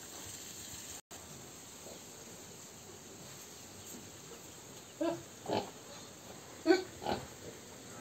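Pigs calling: four short calls in two pairs, one pair about five seconds in and a second, louder pair about a second and a half later, over a faint steady hiss.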